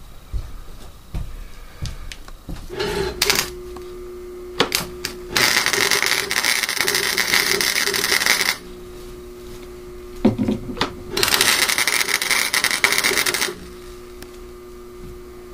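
Welding steel bracing: a welder's steady hum, broken twice by about three seconds of crackling weld arc.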